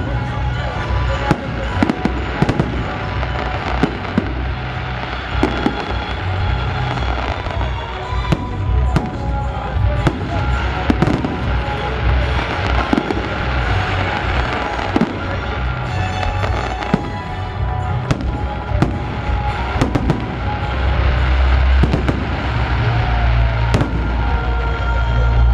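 Festival fireworks display: a dense, continuous run of sharp bangs and crackles from bursting shells, with music playing underneath.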